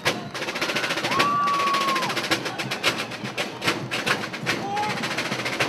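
Marching drum cadence: sharp snare and rim beats in quick succession, with a held high tone about a second in and shorter ones near the end.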